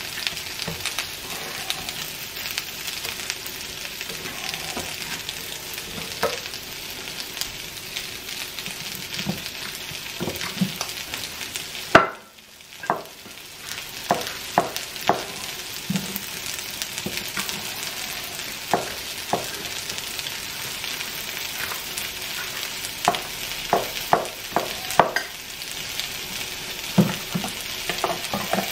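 Sliced peppers and red onions sizzling in a frying pan, a steady hiss with frequent crackling pops. The sizzle drops out briefly about twelve seconds in.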